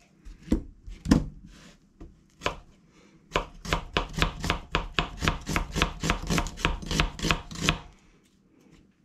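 Kitchen knife cutting an onion on a cutting board: a few separate cuts at first, then a quick, even run of chops, about four or five a second, that stops near the end.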